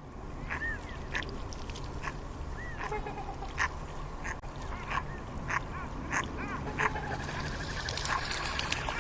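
Ducks quacking: many short calls at irregular intervals over a steady low background noise.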